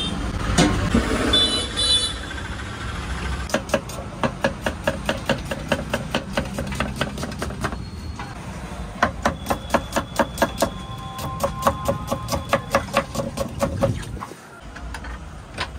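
A metal utensil chopping food on a metal pan at a street food cart: quick, even taps about four a second, in two long runs, over steady traffic rumble.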